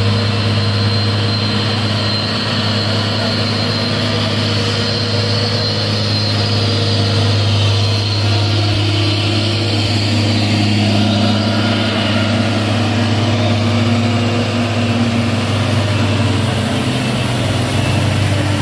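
Diesel engines of heavy loaded cargo trucks running steadily at low speed as they crawl past one after another, with a constant deep hum.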